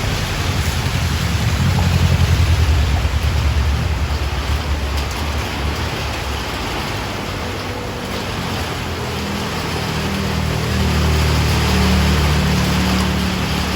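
Steady rain with vehicles passing in it, their engines loudest about two seconds in and again near the end.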